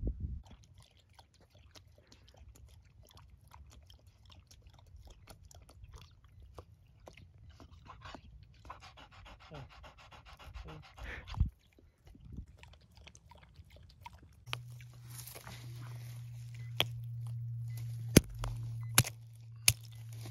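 A dog panting quickly for about three seconds midway. Later a steady low hum sets in, with a few sharp clicks near the end.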